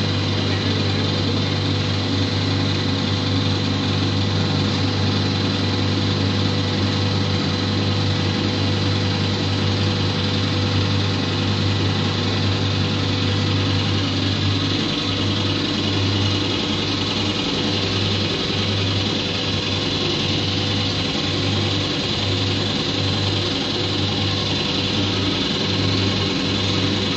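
Blown film extrusion plant running: a steady machine hum with a constant high whine over it. About halfway through, the low hum starts pulsing on and off roughly once a second.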